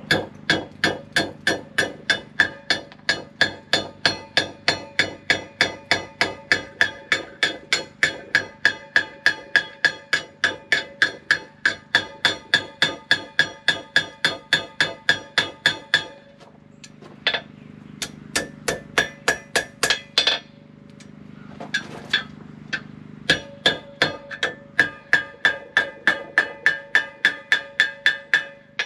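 Hand hammer striking hot steel on a Hay Budden anvil, a steady run of blows about three a second, each with a clear metallic anvil ring, as the end of an S hook is forged and bent. The run stops about sixteen seconds in, a few scattered blows follow, then a steady run of blows starts again near the end.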